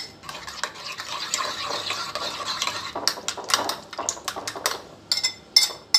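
A spoon beating raw eggs with chopped onion and green chillies in a bowl: a quick, wet swishing with the spoon clinking against the bowl, the taps turning sharper and more separate in the last couple of seconds.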